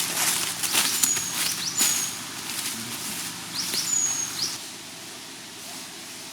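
Campfire crackling and popping, with three short high whistling squeals; the crackling eases off after about four and a half seconds.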